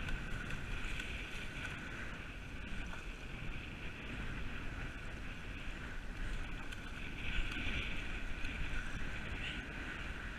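Steady wind buffeting the microphone, with choppy sea water washing against the rocks underneath.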